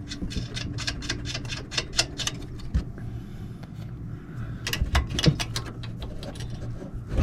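Wrench clicking in quick runs as the nuts on the coilover top plate are tightened by hand, in two spells, with one sharper metal click near the end.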